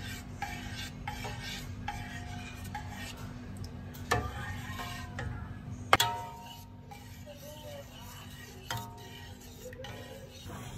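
A spatula stirring and scraping a thick custard mixture around a stainless steel pot, with a sharp knock about six seconds in.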